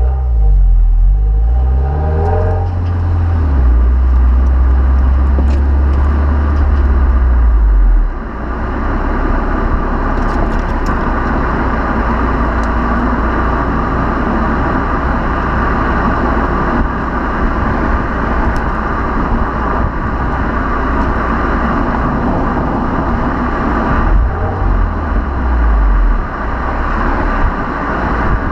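2015 Subaru WRX's turbocharged flat-four heard at its stock quad-tip exhaust. It accelerates with a rising note in the first few seconds, then holds a steady low note until about eight seconds in. After that it cruises under a loud rush of tyre and wind noise, with a brief swell in the engine note near the end.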